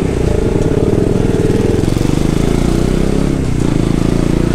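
Motorcycle engine running at low road speed, heard from the rider's own seat. Its pitch dips a couple of seconds in and picks up again near the end.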